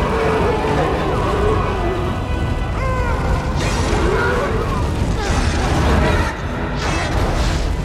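Film battle soundtrack of a fall through fire: orchestral music over a heavy low rumble, with three loud whooshing rushes in the second half.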